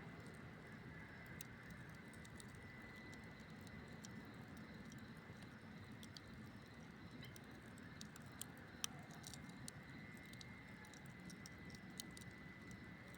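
Campfire burning faintly: a soft steady hiss with scattered small crackles and pops, one sharper pop about nine seconds in.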